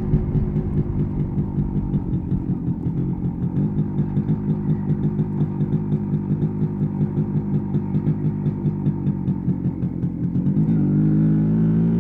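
MZ ETZ 250's single-cylinder two-stroke engine running at low revs with an even, pulsing beat, then, near the end, the throttle opens and the pitch rises as it accelerates.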